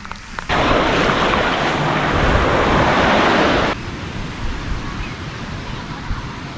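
Surf washing on a sandy beach, mixed with wind noise on the microphone. A loud rush of noise cuts in about half a second in and drops off abruptly after about three seconds, leaving a quieter steady wash with a low rumble.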